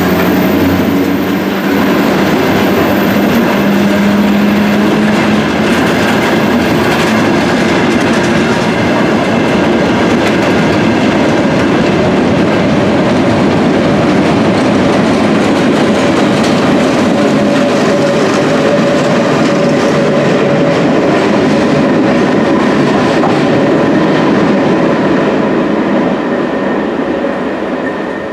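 An engineering train's loaded ballast wagons and flat wagons rolling through an Underground station, their wheels running steadily and loudly on the track. The sound falls away sharply in the last couple of seconds as the train clears the platform.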